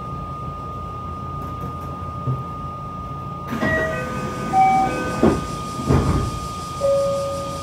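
JR West 227 series electric train running, a low rumble under a steady whine. About halfway in, a string of short beeps at different pitches sounds, with two thuds among them and one longer tone near the end.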